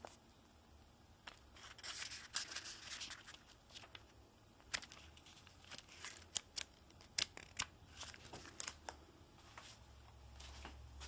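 Paper pages of a small phone book being flicked through and handled. There is a stretch of rustling about two seconds in, then scattered sharp clicks and flicks.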